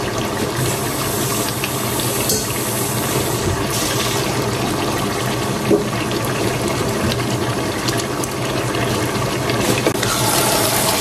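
Chicken pieces sizzling as they fry in oil in a steel pot, a steady hiss, with a wooden spatula stirring them near the end.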